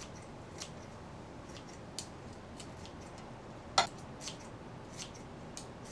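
Kitchen scissors snipping kimchi into small pieces: a string of short, irregular snips, one louder about four seconds in, over a faint steady hiss.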